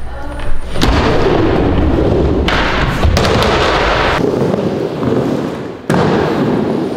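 Skateboard and roller-skate wheels rolling and banging on a wooden skate ramp: a loud, hollow rumble with sharp knocks. The sound shifts abruptly several times as it cuts between runs.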